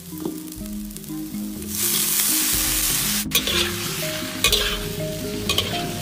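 Sliced pork dropped into hot oil in a large wok, sizzling loudly from about two seconds in, then a metal ladle scraping the wok a few times as the meat is stir-fried. Background music plays throughout.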